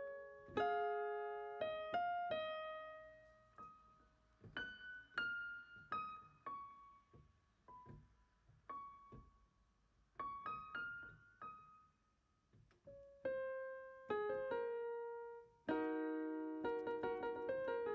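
Background music played on an electronic keyboard in a piano voice: slow, separately struck notes that fade away, a sparse single-note melody in the middle, and fuller chords near the start and again near the end.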